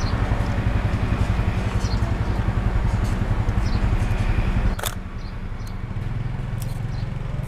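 Motorcycle engines idling close by, a low, evenly pulsing rumble. About five seconds in there is a single sharp click, after which the engine sound drops to a quieter, steadier hum.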